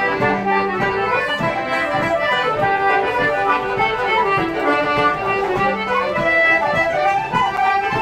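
Live Irish traditional session music: a group of musicians on whistles, banjo and other instruments playing a tune together over a steady strummed rhythm.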